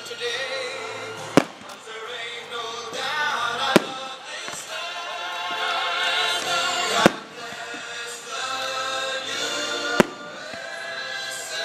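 Fireworks shells bursting in four sharp bangs, a few seconds apart, over continuous music.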